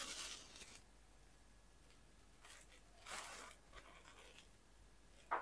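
Near silence with a few faint rustles and scrapes, from hands handling a glass bottle and its plastic screw cap over a small bowl.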